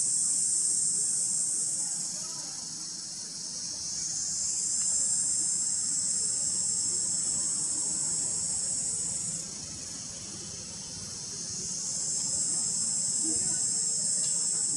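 Steady, high-pitched chorus of forest insects. It fades down about two seconds in, drops off sharply at about nine and a half seconds, and swells back each time.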